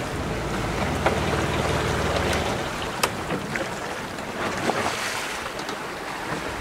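Wind and water rushing past a sailing yacht under way, with a few light clicks and knocks. A low hum stops abruptly about two and a half seconds in.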